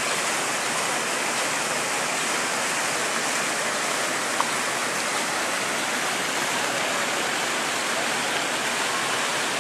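Small fountain jets splashing into a pool, a steady rush of falling water.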